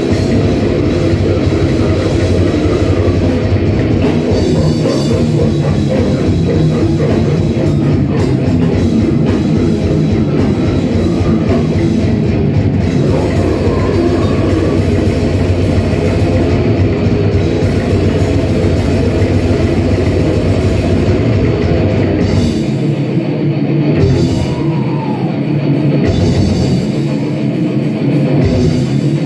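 Live brutal death metal band at full volume: heavily distorted electric guitars, bass and drums playing fast and dense. In the last seven seconds the low end drops out and slams back in several times in stop-start hits.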